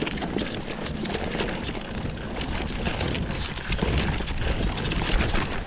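Mountain bike riding down a dirt woodland singletrack: the tyres crackle and crunch over dirt and fallen needles and twigs in a dense run of small clicks, over a low rumble of wind on the microphone.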